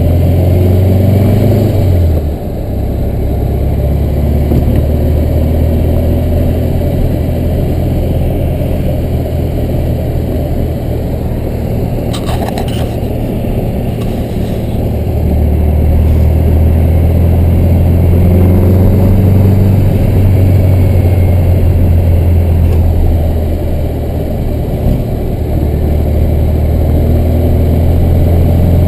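Air-cooled flat-four engine of a 1965 Volkswagen Beetle pulling the car along on the road, a steady low hum heard from on board. It drops away briefly about two seconds in and again about three-quarters through, as at gear changes, and there is one short knock or rattle near the middle.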